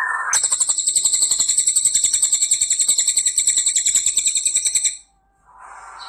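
Crested jay giving a long, loud, high-pitched rattling call of about ten rapid pulses a second, starting just under half a second in and cutting off suddenly after about four and a half seconds.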